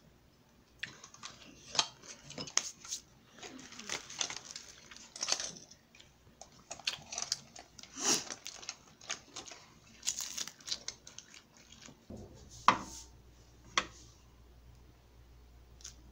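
A spoon scraping and clinking in a ceramic bowl as food is scooped: a long run of short scrapes and taps. Later, two sharp knocks about a second apart are the loudest sounds.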